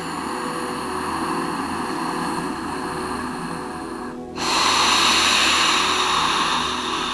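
Two long audible breaths, an inhale and then, after a short pause about four seconds in, a louder exhale, over soft background music.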